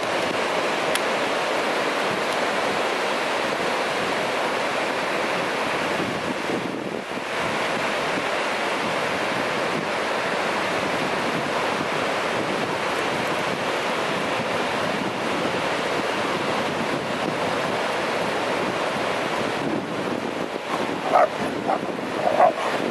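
Ocean surf washing steadily on a sandy beach, with wind buffeting the microphone. Near the end come a few short, high calls.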